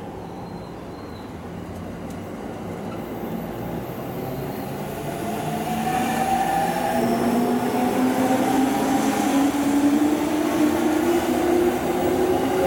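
Yellow-striped JR Chūō-Sōbu Line local electric commuter train departing, wheels running on the rails. It grows louder as it gathers speed, and about halfway in its traction motors set up a whine that climbs steadily in pitch.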